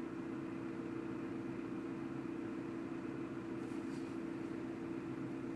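Car engine idling steadily, a constant low hum heard from inside the cabin.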